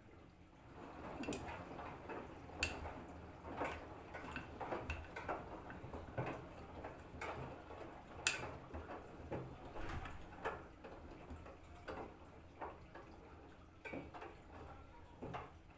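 LG F4R3VYW3WE direct-drive front-loading washing machine tumbling a wash load, with a soft swish of wet laundry and irregular knocks and clicks, about one a second, as items drop inside the turning drum.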